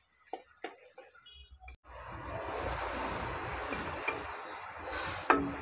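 Sliced onions sizzling in hot ghee, a steady frying hiss that starts abruptly about two seconds in after a near-quiet opening with a few faint taps. A couple of sharp clicks come through the sizzle in the second half.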